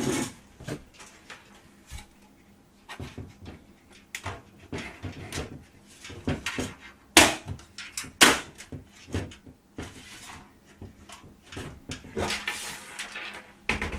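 Front panel of a CiT F3 micro-ATX PC case being handled and fitted back onto the chassis: scattered clicks and knocks, with two sharper snaps a little past the middle and some rustling near the end.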